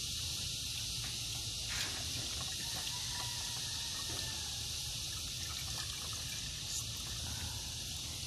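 Distilled water trickling as it is poured into the drained radiator through the open filler neck, filling it for a flush.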